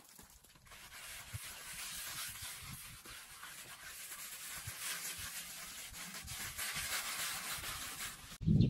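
Steady scratchy rubbing noise, like a tool or hand worked across a rough surface. A louder, lower sound breaks in just before the end.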